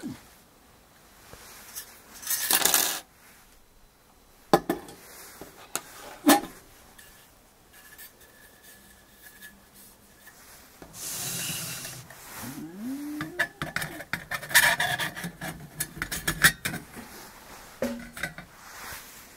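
Stainless-steel heater attachment for a camping gas stove being handled and fitted together: metal parts clinking, tapping and rubbing against each other. There is a louder rustling scrape about two seconds in, and a quick run of clinks near the end as the mesh cylinder goes onto the stove.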